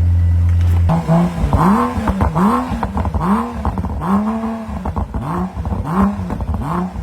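BMW 325xi engine running steadily, then revved in quick, repeated throttle blips, its pitch rising and falling about every second. The car now starts and runs after a loose contact was fixed.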